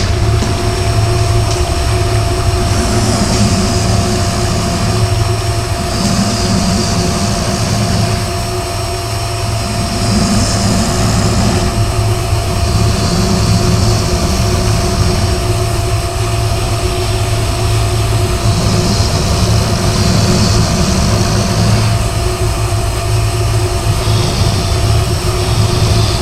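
Vacuum cleaner motor running steadily, with a low hum and a steady whine, and a whooshing swell that comes and goes every two to three seconds.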